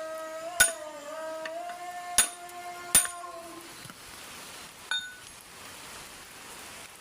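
Three sharp metallic clinks, the loudest sounds, over a steady pitched hum that fades out about three and a half seconds in; a fainter clink follows near five seconds.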